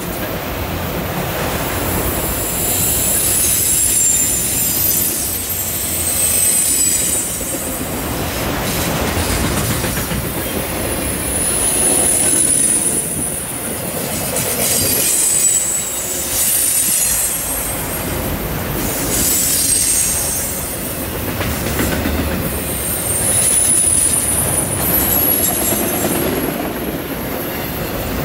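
Freight train of enclosed autorack cars rolling past: a steady rumble of wheels on rail with clacking, and high-pitched wheel squeal that comes and goes. The noise swells and eases every few seconds.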